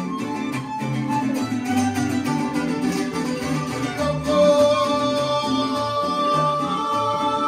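Mariachi band playing: violins over strummed guitars and a plucked bass line, with the violins holding long notes from about four seconds in.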